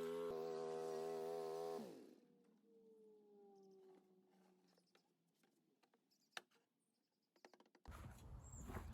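Power drill driving a screw into a wooden board, its motor running steadily and then winding down to a stop about two seconds in, followed by a few faint clicks.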